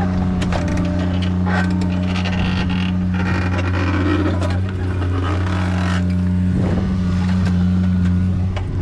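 A machine engine running at a steady pitch, with scattered metallic clicks and knocks over it.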